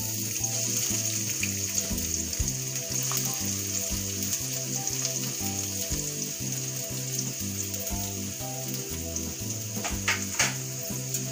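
Chopped onions frying in hot oil in a stainless steel kadai: a steady sizzle, with a couple of sharp taps near the end.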